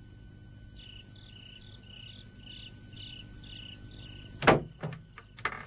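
Insect chirping in short, high two-pitched chirps about twice a second over a low hum. About four and a half seconds in there is a sharp loud knock, followed by a few lighter clicks.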